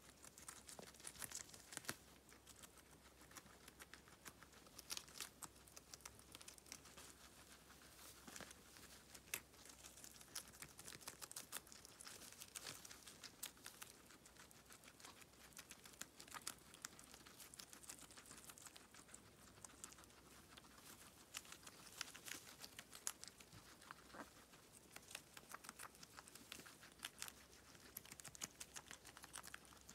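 Guinea pigs chewing and tearing lettuce leaves: a faint, steady patter of small crunching clicks.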